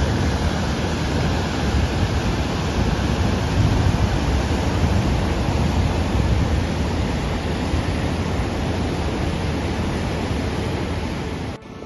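Steady rushing noise of fast-flowing floodwater, with low rumble that fits wind buffeting the microphone; it cuts off suddenly at the very end.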